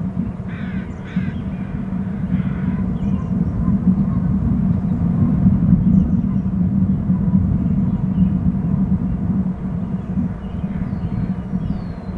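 Steady low rumble, with three short harsh bird calls in the first three seconds and a few thin high whistling calls near the end.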